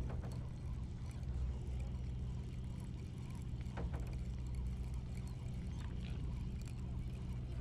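Sportfishing party boat's engine running with a steady low drone, with a couple of sharp clicks, one at the start and one about four seconds in.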